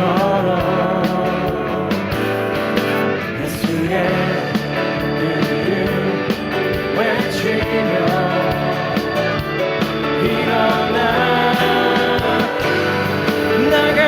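Contemporary worship band music: guitar and full band playing, with a voice singing over it.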